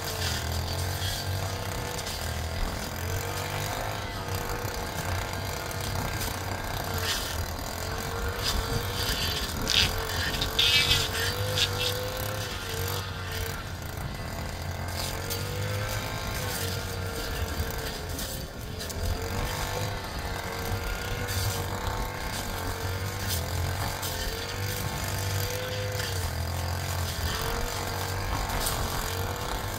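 An engine running steadily with a low hum and a whine that rises and falls in pitch over and over, and a short spell of clattering about a third of the way in.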